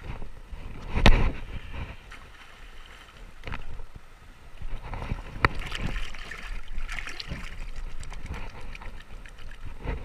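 Shallow river water splashing and sloshing around a person wading in sandals, with a loud thump about a second in and a sharp click about halfway.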